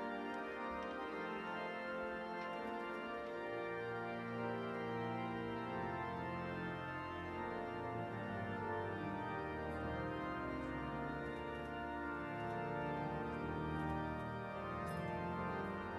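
Pipe organ playing slow sustained chords, with deep bass pedal notes coming in about six seconds in.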